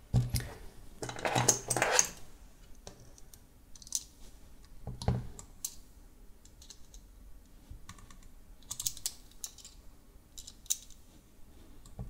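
Irregular small clicks, taps and scraping as a small screwdriver tip works at a DIY micro USB plug, forcing its plastic shell into place, with a denser stretch of handling in the first two seconds.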